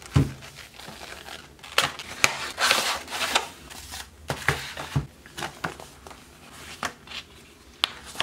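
Handling of a model train set's cardboard box, foam tray and paper instructions: a dull thump at the start, then scattered clicks and taps with a stretch of papery rustling and crinkling about three seconds in.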